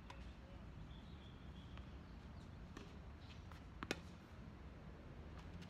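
A tennis racket striking a ball once, a sharp crack just before four seconds in, after a few faint taps, over a steady low background rumble.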